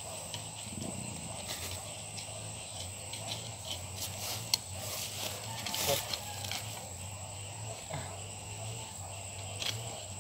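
Sweet potato vines rustling and soil being scraped as tubers are dug out by hand and with a wooden stick, in scattered short clicks and scrapes over a faint steady hum.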